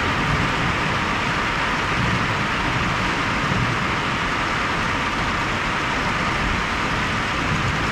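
Steady rain falling during a thunderstorm: an even, unbroken hiss with no thunderclaps.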